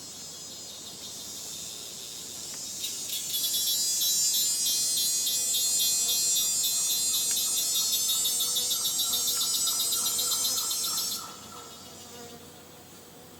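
A tropical rainforest insect calls with a loud, rapid, high-pitched pulsing buzz. It starts about three seconds in and stops abruptly near the end, over a softer steady hum of other insects.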